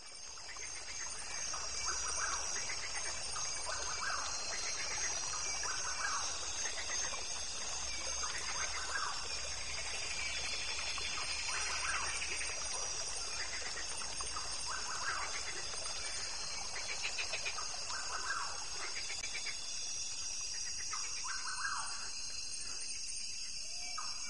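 Rainforest ambience: short trilled bird calls repeating every second or two over a steady high-pitched hum, fading in over the first couple of seconds.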